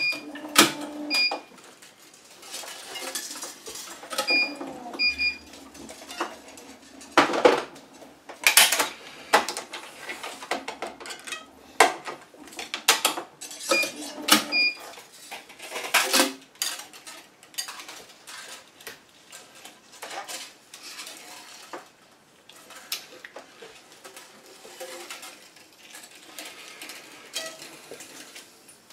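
Clicks and knocks of metal clamps and a racquet frame being handled on an electronic tennis stringing machine, irregular and sometimes loud. Short high electronic beeps sound several times in the first few seconds and again near the middle.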